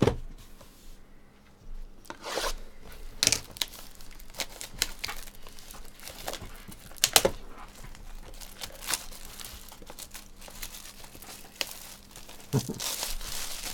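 Trading card packaging being torn open and crinkled by hand: irregular tearing and crackling of wrapper, with a sharp thump at the very start.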